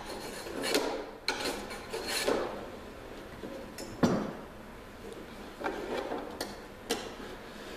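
Small hand plane shaving the end of a wooden kayak strip in several short scraping strokes. About four seconds in there is a single sharp knock, then a few light clicks as the strip is handled.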